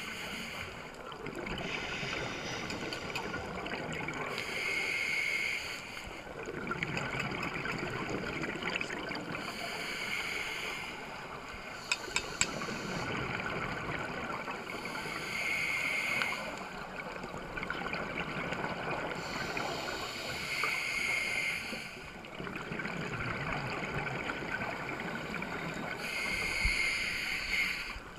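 Scuba diver breathing through a regulator, heard underwater: a short hissing inhale about every five seconds, each followed by a few seconds of bubbling exhaust. Three sharp clicks about twelve seconds in.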